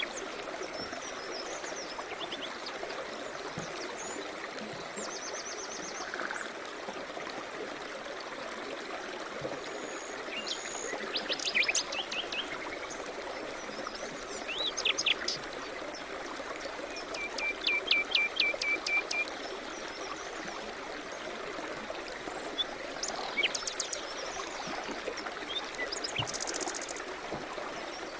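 Steady rush of a flowing stream with songbirds chirping and trilling over it at intervals.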